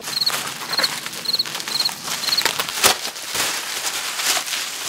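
Plastic bubble wrap crinkling and crackling, with many sharp crackles, as it is cut open and pulled off a wrapped camera.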